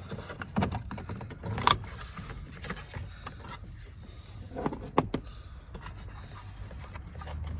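Scattered plastic clicks and knocks from a pickup truck's interior door trim panel being worked loose and handled, with the sharpest clicks about two seconds and five seconds in.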